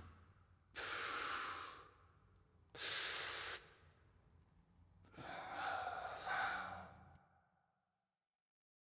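A man breathing heavily: long, noisy breaths about two seconds apart, the last a longer sigh with some voice in it that fades out. A faint low hum runs underneath.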